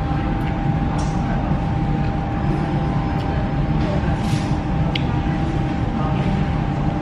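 Steady low background rumble with a faint steady hum, and a few short crisp crunches of toasted garlic bread being bitten and chewed, about a second in and around four to five seconds in.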